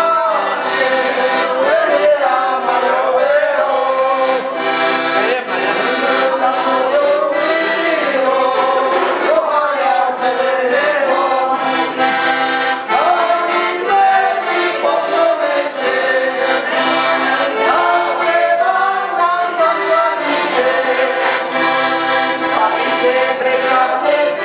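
Piano accordion playing a song with several people singing along.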